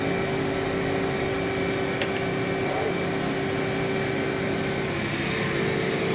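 Mori Seiki NT 4300 DCG turning and milling center running with its spindle turning a chucked workpiece: a steady machine hum with several constant tones, and one sharp click about two seconds in.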